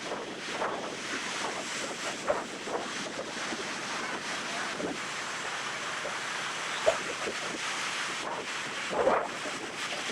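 Ocean surf washing onto a sandy beach, with wind buffeting the microphone in gusts. A short sharp knock about seven seconds in.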